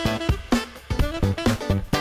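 Instrumental background music with plucked string notes over a steady beat.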